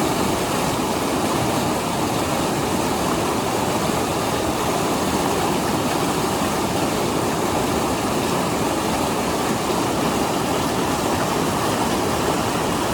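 The Lidder River's fast water rushing steadily and loudly, an unbroken hiss and rumble of moving water.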